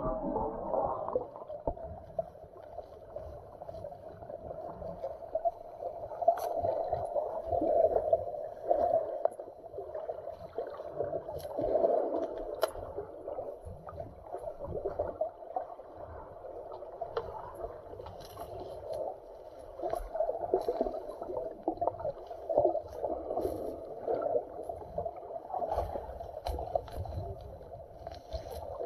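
Muffled underwater ambience through a camera's waterproof housing in shallow sea: a wavering wash of moving water, with scattered sharp clicks throughout.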